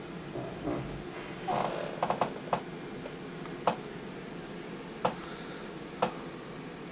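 Geiger counter clicking at random, irregular intervals, about seven sharp clicks, three of them close together about two seconds in, each one a radiation count from a paper towel wiped over a rained-on car, here well above the usual background. A brief rustle comes before the clicks.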